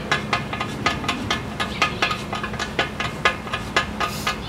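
Phillips screwdriver turning the tensioning screw of a hose reel's hose-retaining strap. It clicks steadily, about four sharp clicks a second, as the strap is drawn tight.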